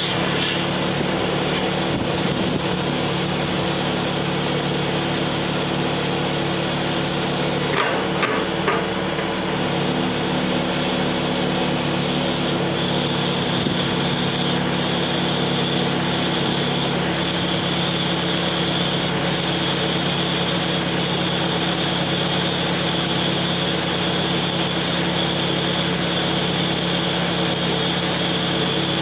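Forklift engine running steadily while it powers a hydraulic rotating clamshell bucket. A few clanks come about eight seconds in, and the engine note shifts between about ten and seventeen seconds in.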